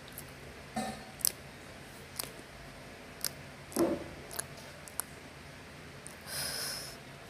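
Close-up eating sounds from someone eating rice with her fingers: scattered wet mouth clicks and smacks while chewing, a soft knock from the fingers working the food on a steel plate about midway, and a longer sucking sound near the end as the hand goes to the mouth.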